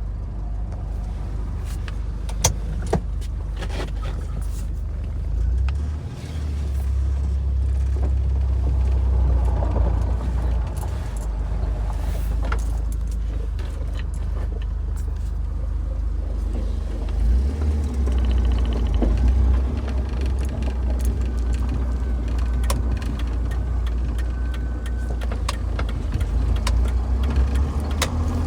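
Car engine pulling in second gear at about 2,000 rpm, a steady low drone with scattered sharp ticks. The owner cannot place the noise: lifter tick, piston slap, rocker arms or another exhaust leak.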